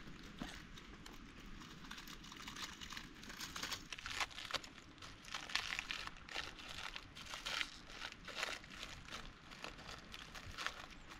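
Plastic snack packet crinkling as it is handled, in short irregular crackles that are thickest and loudest from about four to nine seconds in.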